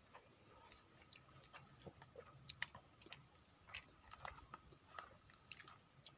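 Faint, irregular clicks and ticks, about a dozen scattered through, over a faint steady high-pitched whine.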